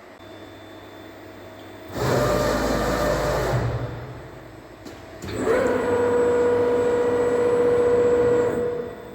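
Safan E-brake CNC press brake running. About two seconds in there is a loud rushing burst lasting under two seconds. From about five seconds a loud, steady whine holds for over three seconds and stops near the end.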